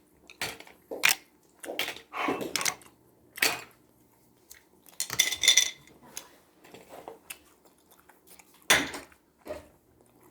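Tableware clinking during a meal: utensils knocking against bowls and dishes in a string of separate clicks, with a brighter ringing clink about five seconds in.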